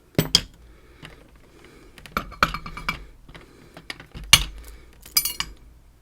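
Small metal lock parts clicking and clinking as a Ruko padlock and its Zeiss Ikon snowman core are handled: a string of sharp separate clicks, the loudest about four seconds in.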